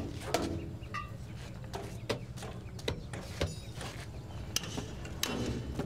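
Irregular knocks, taps and clinks of construction work with hand tools on concrete and steel rebar, over a steady low background hum.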